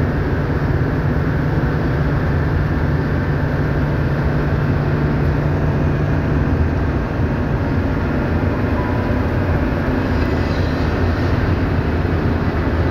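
Toyota Coaster minibus on the move: steady engine and road noise heard from inside the cabin, with a low engine drone that eases off about six and a half seconds in.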